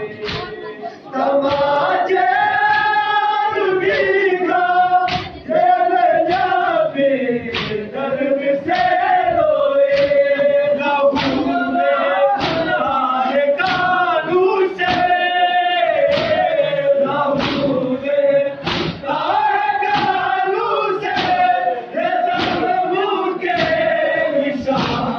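A crowd of men sings a Shia noha (Muharram lament) together, with a sharp beat of matam, hands striking chests, keeping time about every three-quarters of a second.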